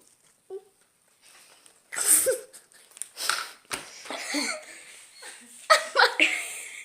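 Voices laughing and vocalising without clear words, in short loud bursts starting about two seconds in, typical of children playing around.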